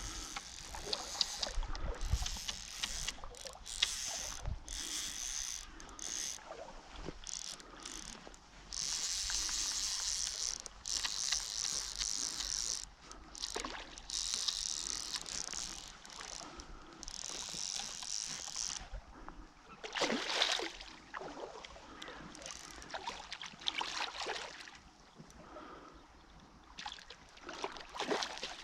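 Water splashing and rushing in irregular bursts.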